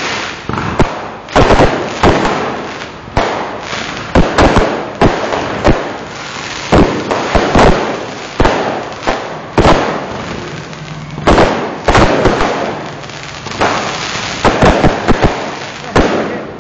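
A fireworks display: many sharp bangs from bursting fireworks in quick, irregular succession, often several a second.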